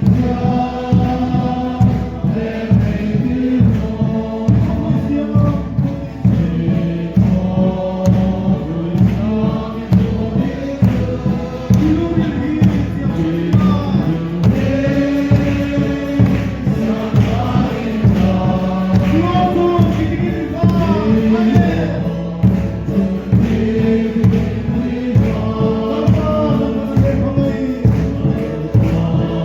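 Background music: a choir singing a gospel song over a steady beat.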